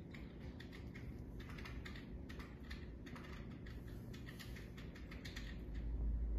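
Fine green silicon carbide grit pouring from a scoop into a glass dish, a faint, fast patter of tiny ticks as the grains land. A low rumble comes in near the end.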